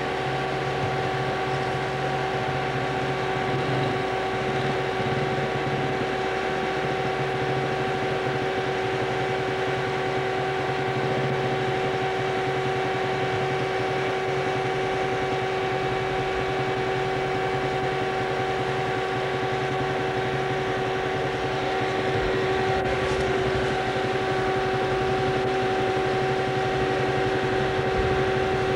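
A steady mechanical hum with two constant tones, unchanging in pitch and level throughout.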